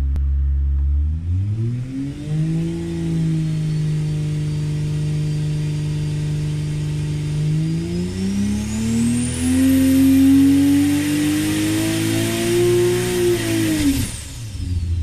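BMW B58 turbocharged 3.0-litre inline-six on an engine dyno at about 42 psi of boost. It revs up from idle about a second in and holds steady, then, from about halfway, sweeps up through the rpm range in a full power pull while a high whine climbs with it. Near the end the throttle is chopped and the revs drop fast.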